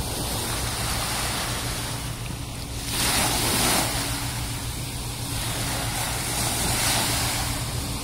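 Small sea waves breaking and washing up a sandy beach, the wash swelling twice, over a steady low hum.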